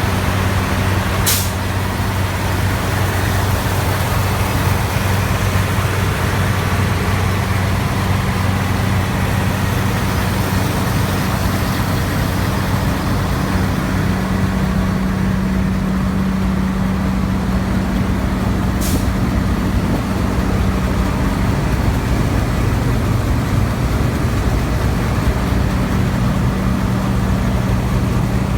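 New Holland TX68 combine harvester's turbocharged Iveco 9.6-litre six-cylinder diesel idling with a steady hum. Two brief clicks break in, once near the start and once about two-thirds of the way through.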